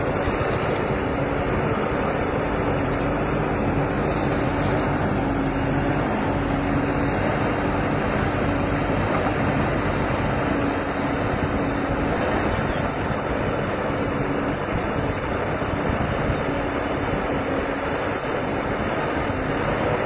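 Çukurova JMac 888 backhoe loader's diesel engine running steadily under load as the backhoe arm digs, its hum rising and falling slightly.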